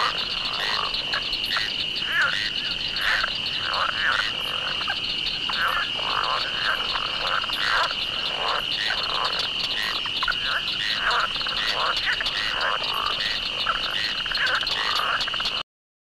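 Chorus of frogs croaking, many short overlapping calls over a steady high-pitched tone. It cuts off suddenly near the end.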